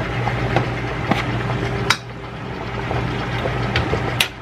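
Chicken hearts and gizzards frying in oil with onion and garlic in a steel pot, a steady sizzle, with a few sharp clinks of metal tongs or a fork about a second in, near two seconds and near the end. A steady low hum runs underneath.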